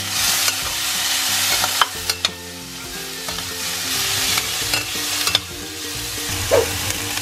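Diced tomatoes, celery, onion and garlic sizzling as they fry in a stainless steel pan, stirred with a metal spatula that clicks and scrapes against the pan a few times.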